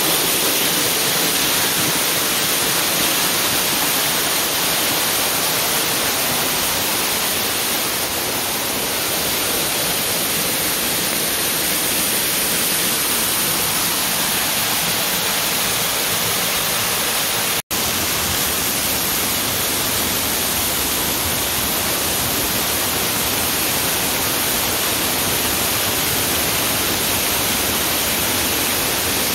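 Small waterfall spilling over rock ledges: a steady rush of falling water that cuts out for an instant about two thirds of the way through.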